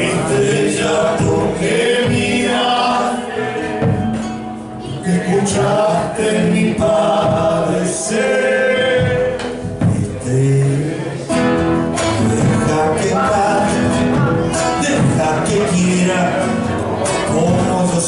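Argentine folk group performing a song: male voices singing together with instrumental accompaniment.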